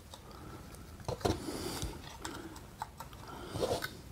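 Light scattered clicks and scraping as a relay's pins are pushed back into the holes of a dishwasher control circuit board, the sharpest click about a second in.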